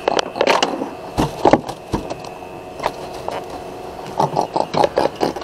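Scattered knocks, clicks and scrapes of fishing gear being handled on a small boat, the loudest a pair of knocks about a second and a half in, over a faint steady hum.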